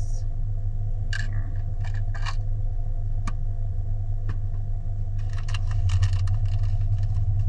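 Small plastic miniatures and their wrapping being handled: scattered clicks and taps, then a busier run of crinkling and clattering from about five seconds in, over a steady low hum.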